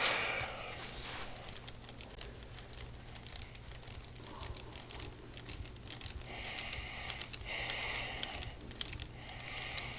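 Rapid light clicks and crinkling, with three short hisses in the second half.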